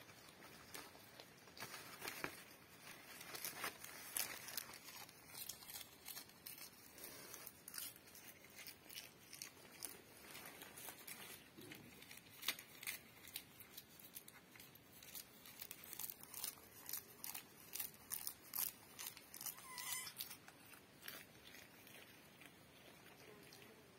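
Goat tearing and chewing leafy branches: faint, irregular rustling and crunching with many scattered clicks. A brief faint high call comes near the end.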